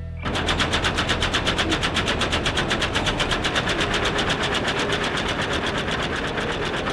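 Split-flap train departure board flipping its letters: a rapid, even clatter of about ten clicks a second that starts abruptly just after the beginning.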